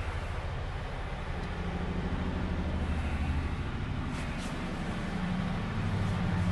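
Truck diesel engine running, heard from inside the cab, a steady low hum whose pitch rises slightly about two seconds in and again near the end.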